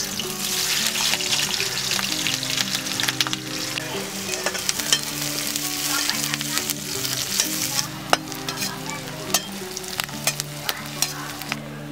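Chopped onions frying in hot oil in a kadai, a loud sizzle that eases after about eight seconds. Throughout, a perforated steel skimmer stirs them, clinking and scraping against the pan.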